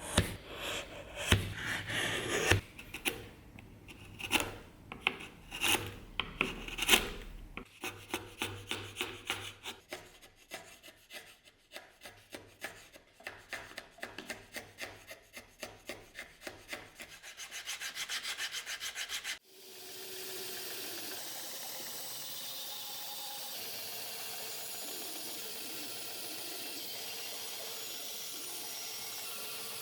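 Rhythmic rubbing strokes of hand abrasive work on a workpiece, slow and spaced at first, then quicker and denser. About two-thirds of the way in, the strokes cut off suddenly and give way to a steady, even rushing noise.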